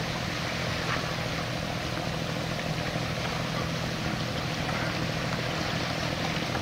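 Boat engine running steadily, a low even drone under a broad hiss of water.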